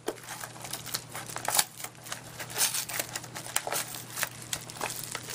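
Hands ripping open a taped mailing package: irregular tearing and crinkling of the wrapping and tape, in a quick uneven series of rustles and rips.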